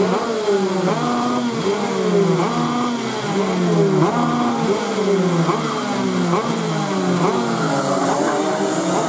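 Several racing kart engines running together as the karts pass. Their pitch climbs and drops again and again, about once a second, with several engines overlapping.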